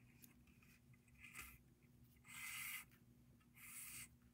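Wildfire beading thread being drawn through a row of glass beads on a bead loom: three short, soft hisses, the middle one the longest, about a second apart.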